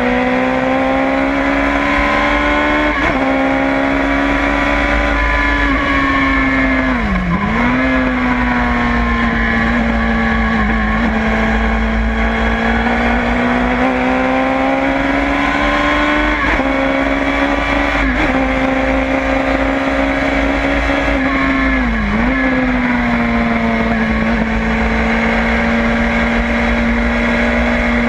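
LFC Tornado race car's engine heard on board at speed, running at high revs with a steady loud note. The pitch climbs slowly, breaks a few times, and twice dips sharply and recovers, about seven seconds in and again near twenty-two seconds in.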